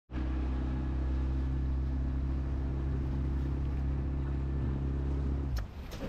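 A boat's motor running at a steady speed, a low even drone that cuts off suddenly about five and a half seconds in. Two sharp clicks follow, and wind and splashing water take over.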